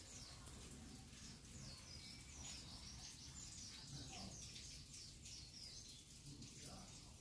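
Faint bird song: a run of quick, high chirps, busiest from about two to five seconds in, over a low, steady background noise.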